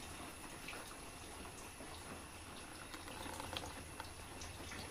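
Thick cassava-and-rice dosa batter poured from a mixer-grinder jar into a bowl: a faint, soft wet pour with a few light taps.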